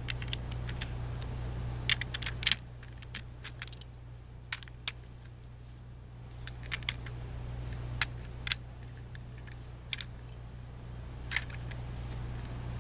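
Plastic Lego bricks being pressed together and handled, giving a string of sharp, irregular clicks, some in quick pairs, over a steady low hum.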